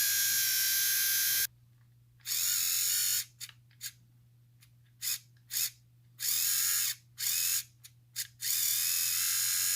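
Small battery-powered electric motor of a vintage 1978 Kenner X-Wing toy, freshly oiled after seizing, running with a high whine. It stops suddenly after about a second and a half, then starts and stops again and again, with some runs lasting under a second and a few blips, as power through the contacts is made and broken.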